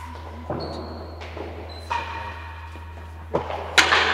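Real tennis rally: about five sharp knocks of the solid ball off rackets, walls and floor, each ringing on in the hall's echo, the loudest near the end.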